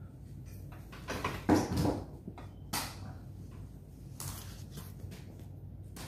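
Handling noises as a person moves things about by hand: a few rustling scrapes and bumps, the loudest about one and a half seconds in, with a short knock near three seconds and another rustle a second later.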